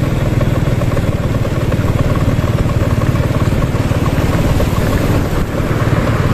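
Small motorbike engine running steadily as the bike rides along, with a fast, even firing pulse and a hiss of wind and road noise.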